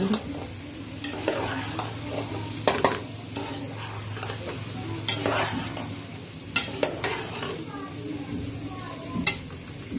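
Metal spatula stirring and tossing chopped mixed vegetables in an aluminium pot as they fry over the stove, with a sizzle under it and several sharp scrapes and knocks of the spatula against the pot.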